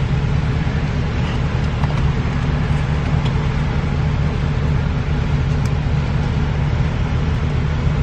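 Steady low hum of a car idling at a standstill, heard from inside the cabin with the driver's window down.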